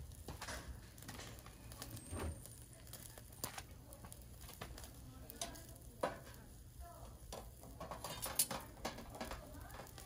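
Meat sizzling on the wire grill of a small BBQ stove, with scattered sharp clicks and scrapes of metal tongs against the grill as the pieces are turned.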